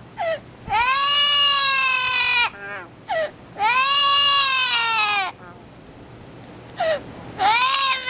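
Yellow-naped Amazon parrot calling: two long, loud wails that each rise and then fall in pitch, with short calls between and a further call near the end.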